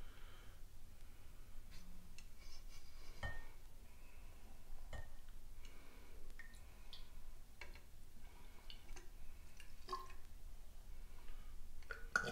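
Faint scattered glass clinks and small drips of liquid as mead is drawn from a glass jug with a bulb-topped wine thief and let into a glass hydrometer test jar.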